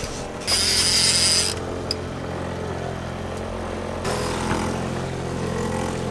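Honda outboard motor running steadily at trolling speed. About half a second in, a loud hiss with a high steady tone lasts about a second.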